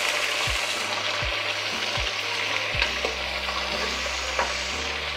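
Mutton sizzling as it fries in hot ghee in a pressure cooker, stirred with a steel ladle that scrapes and knocks against the pot now and then.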